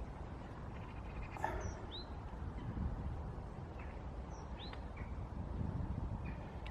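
A few short, high bird chirps, scattered and spaced a second or two apart, over a steady low background rumble.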